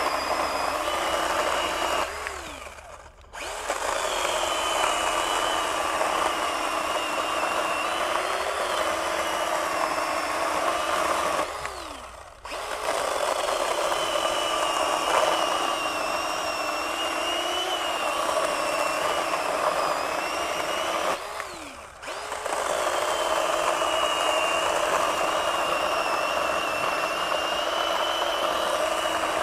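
Craftsman 20V cordless pruning chainsaw's brushed electric motor running under load, its 6-inch bar and chain cutting a 4-inch limb at the saw's maximum capacity. Three times, roughly ten seconds apart, the motor briefly spins down with falling pitch and comes straight back up to speed.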